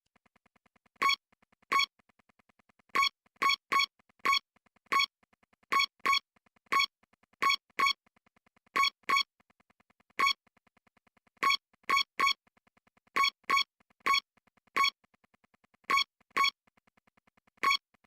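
Short electronic synthesizer beeps, all at one pitch, repeated in an uneven rhythm of one to two a second.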